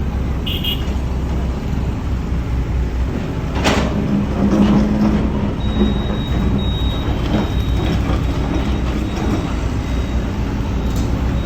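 Heavy construction machinery running with a steady low engine rumble, a short hiss a little under four seconds in, and a thin high whine over the engine during the second half.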